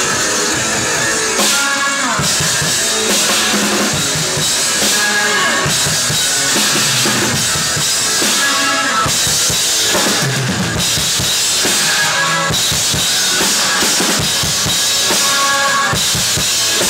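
Music led by a drum kit playing a steady, busy beat of bass drum and snare, over a backing track with recurring held melodic notes.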